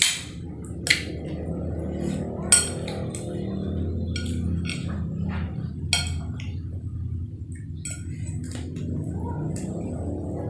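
Cutlery clinking against a plate several times while eating siomay, the sharpest clink about two and a half seconds in, over a steady low hum.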